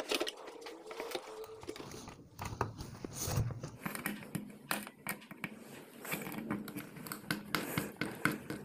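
Two small screws being fitted by hand through a metal panel plate into the plastic body of a rotary changeover switch: irregular light clicks, taps and scrapes of metal and plastic being handled.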